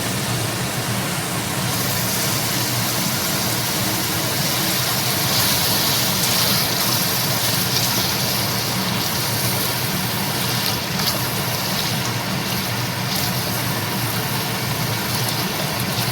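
Chicken and masala sizzling as they fry in a pot, with a steady low hum underneath. The hiss grows brighter a couple of seconds in.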